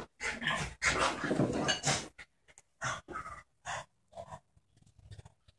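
A Border terrier and a French bulldog play-wrestling, with dense play noise for about two seconds. Then the sound breaks into a few short, separate bursts, like a dog's panting breaths.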